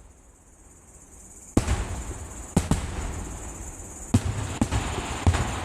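Fireworks shells bursting: after a lull of about a second and a half, about six deep booms come one after another, each trailing off in a rumbling echo.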